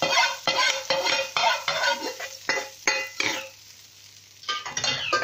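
Pet parrots squawking in a run of short, harsh calls, about two a second. They pause briefly and start again near the end. Under them, hot spiced oil (tadka) sizzles as it settles on the kadhi.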